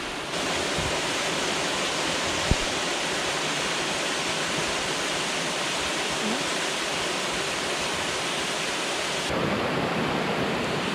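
Waterfall rushing steadily, with one short knock about two and a half seconds in.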